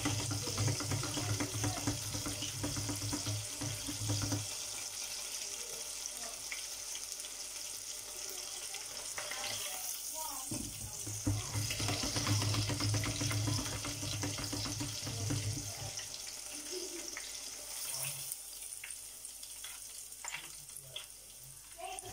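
Pork strips deep-frying in a pot of hot oil: a steady sizzling hiss, with a low hum in two stretches and a few light clicks near the end.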